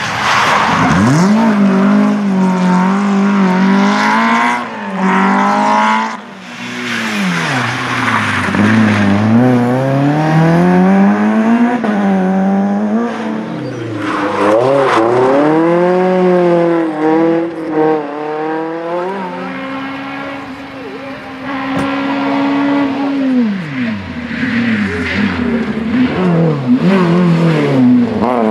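Several rally cars in turn, among them a Simca 1000 and a Renault Clio, accelerating hard past at close range. Their engines rev up and drop again and again through gear changes, and one engine holds a steady note for a few seconds about two-thirds of the way through.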